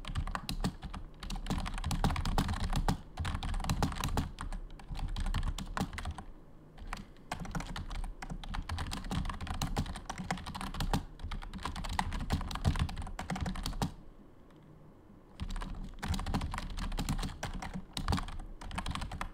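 Typing on a computer keyboard: fast, uneven runs of keystrokes, with a pause of a second or so about three-quarters of the way in.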